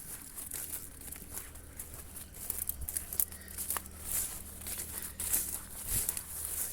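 Water spilling over a small dam after heavy rain, a steady crackling splash with many small irregular drips and clicks over a faint low rumble.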